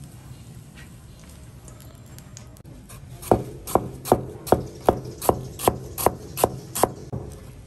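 Ten sharp knocks in a steady rhythm, about two and a half a second, starting a little before halfway and stopping near the end, over a low steady hum.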